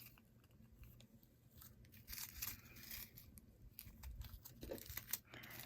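Faint rustling and crinkling of small plastic bags of diamond-painting drills being handled and sorted, with scattered light clicks.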